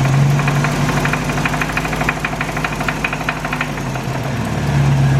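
1985 Toyota 4Runner's four-cylinder engine idling with a fast ticking rattle that stops about two thirds of the way through, after which the steady engine hum grows louder. The owner takes the noise for worn timing chain guides, with valves that also need adjusting.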